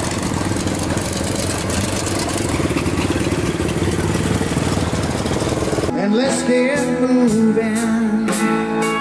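Stadium super truck's engine running loud and rough up close. About six seconds in it cuts off abruptly into music with a singing voice.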